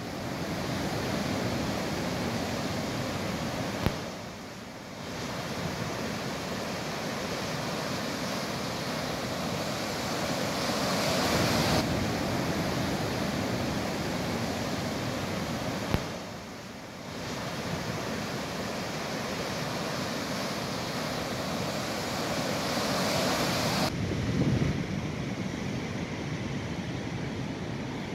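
Sea surf and wind on the microphone, a steady rushing noise. It dips briefly twice and turns duller near the end.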